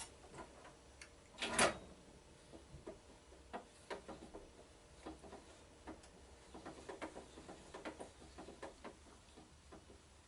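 Scattered light clicks and taps of the saw guard's bolts and small parts being handled and fitted, with one louder knock about a second and a half in.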